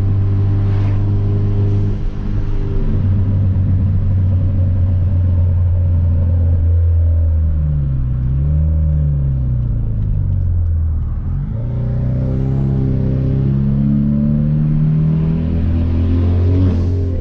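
Hyundai Veloster Turbo's 1.6-litre turbocharged four-cylinder running on the road through a catless downpipe: a steady drone, then the engine note falls and rises again about halfway through, and climbs as the car accelerates near the end.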